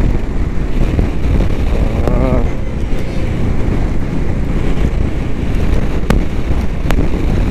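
Wind buffeting the camera microphone on a moving motorcycle at about 60 km/h, a loud, steady low rush over the engine and road noise. Two sharp ticks come near the end.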